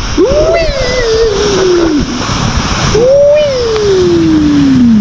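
Two long wordless yells from people riding a sled downhill, each jumping up in pitch and then sliding down over about two seconds, over the steady rushing noise of the sled sliding fast over snow.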